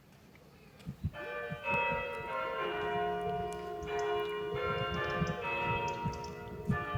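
Church tower bells ringing out, starting about a second in: stroke after stroke of different pitches, each ringing on and overlapping the next.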